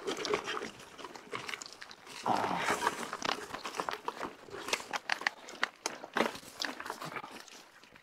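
Loose gravel and dirt crunching and crackling with many small clicks and rattles, growing louder about two seconds in.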